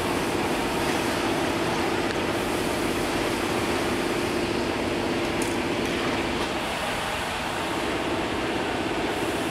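Steady mechanical running noise with a low hum that fades out about seven seconds in.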